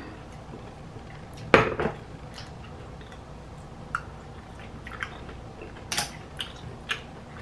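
Cooked clam shells clinking against each other and against the bowl as a clam is picked out by hand, in a handful of sharp clicks, the loudest about a second and a half in and softer ones spread through the rest.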